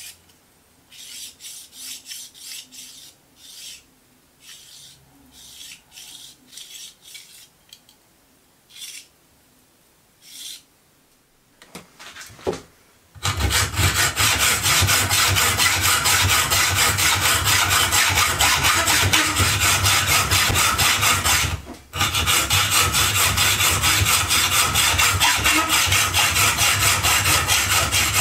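A hacksaw cuts through the jaw of a digital caliper clamped in a bench vise, with quick back-and-forth strokes. It starts about halfway through, pauses once briefly, then carries on. Before it come several short, light scraping sounds as the caliper is handled.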